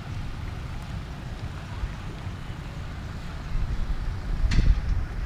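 Wind buffeting the microphone, an uneven low rumble, with one short sharp knock near the end.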